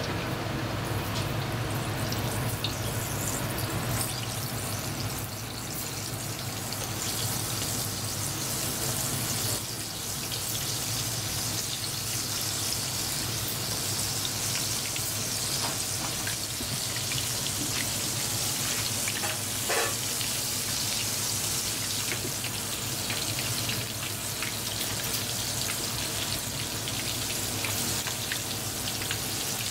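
Battered pieces deep-frying in hot oil in a black iron pan: a steady crackling sizzle, briefly louder about twenty seconds in, over a steady low hum.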